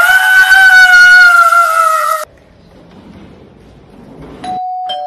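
Tyre screech as a car pulls away: a loud squeal that rises at its onset and then holds one steady high pitch for about two seconds before cutting off. Near the end a doorbell chimes twice, ding-dong, a higher note then a lower one that rings on.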